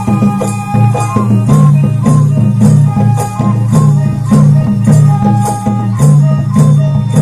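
Traditional folk dance music: a low beat repeating in a steady rhythm, short held notes on a wind instrument, and shaken rattling percussion keeping time.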